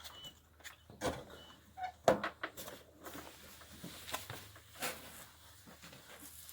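Scattered metal knocks and clinks of wrenches and bolts being worked on a scooter's engine mount, the loudest knock about two seconds in, with a couple of brief squeaks.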